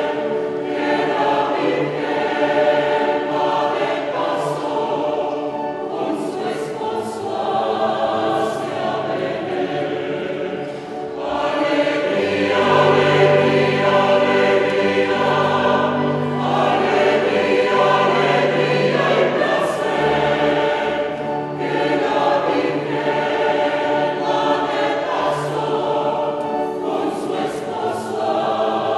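Mixed choir of men's and women's voices singing in parts. The sound thins briefly about eleven seconds in, then comes back fuller and louder, with low bass notes.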